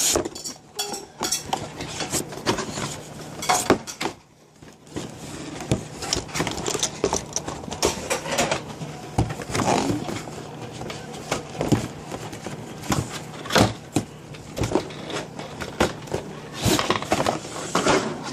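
A drone's box and packaging being handled and opened by hand: irregular rustling and scraping with many short clicks and knocks as the drone is taken out.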